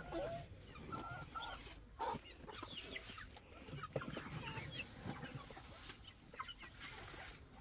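Chickens clucking softly, with scattered short calls and a few light knocks.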